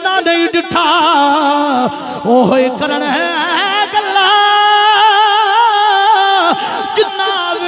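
A man's voice singing a devotional verse through a microphone, drawing out long, wavering, ornamented notes, with one note held for about two seconds past the middle.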